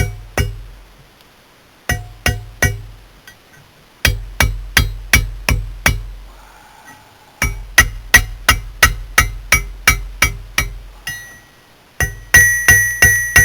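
Hammer blows on hot steel over an anvil, forging an old file into a flint striker. The blows come in bursts of about three a second with short pauses between, each ringing briefly; the last burst rings loudest.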